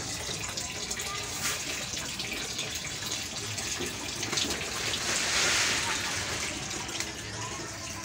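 Water pouring and splashing, swelling to its loudest about five seconds in.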